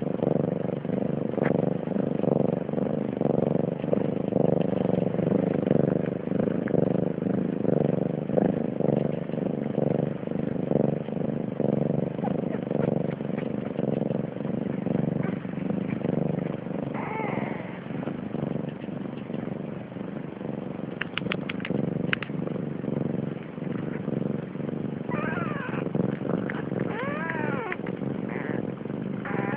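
A Siamese mother cat purring steadily, close to the microphone. Newborn kittens give faint, high mews that rise and fall, once a little past the middle and several times near the end. A few quick clicks sound about two-thirds of the way through.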